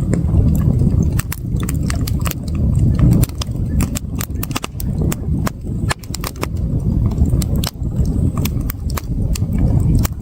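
Wood fire crackling, with many sharp, irregular pops and snaps over a steady low rushing noise.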